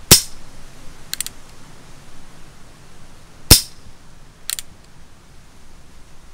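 Umarex Colt Single Action Army CO2 revolver firing .177 pellets: two sharp shots about three and a half seconds apart. About a second after each shot come a few quick, faint clicks as the single-action hammer is cocked again.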